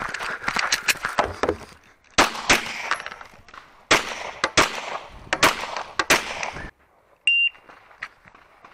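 Glock 17 Gen 4 9mm pistol firing about eight shots in quick pairs and singles during an IPSC stage, after a couple of seconds of scuffing movement noise. A short electronic beep sounds near the end.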